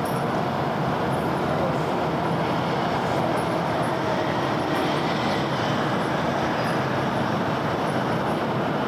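Dense city road traffic: a steady, even wash of passing vehicles with no single one standing out.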